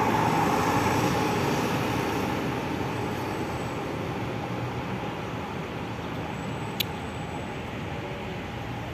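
A city bus running as it moves past and away, its engine and road noise slowly fading. A single brief click about seven seconds in.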